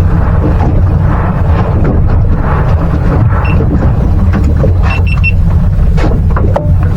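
Steady low rumble of a boat at sea with wind on the microphone, broken by scattered knocks. It carries one short high beep about halfway through and three quick beeps about five seconds in.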